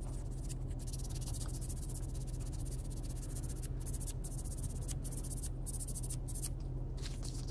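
Fine sandpaper rubbing on a small clear plastic windshield: a soft, continuous scratchy hiss that breaks off briefly several times, over a steady low hum.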